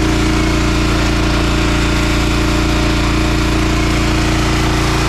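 Gas-engine pressure washer, a 4000 PSI unit, running at a steady speed with an even, unchanging drone.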